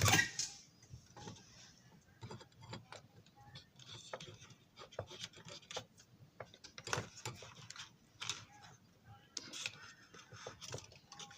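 Irregular small clicks, taps and light rattles of hands working a small screwdriver on a model train car, with a louder knock at the very start.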